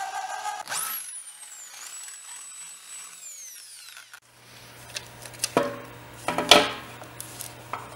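Cordless drill boring a hole through the compressor's steel pump mounting plate, its motor running steadily, then a high whine that rises sharply about a second in and falls away over the next three seconds. Near the end, a few metal clanks as the pump and motor assembly is moved back over the plate.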